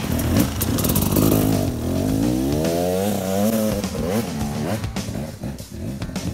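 Enduro dirt bike engine revving hard under throttle, its pitch climbing for about two seconds and then dropping away. At the start there is splashing as the wheels go through stream water.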